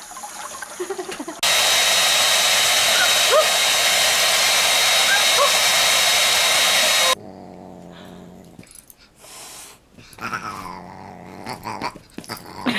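Water running from a kitchen tap for about a second and a half, then a hand-held hair dryer running loud and steady with a thin high whine, cutting off suddenly after about six seconds. Quieter dog sounds follow.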